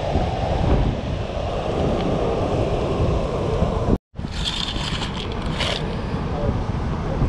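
Steady rush of water pouring through the dam's spillway gates, with wind buffeting the microphone. After a cut about four seconds in, a clear plastic lure bag crinkles for about a second and a half over the continuing wind and water noise.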